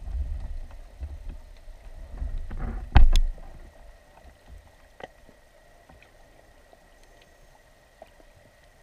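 A GoPro's underwater housing being jostled on the rocky seabed: low rumbling and knocking, peaking in a sharp double knock about three seconds in, then settling to a faint underwater hiss with an odd small click.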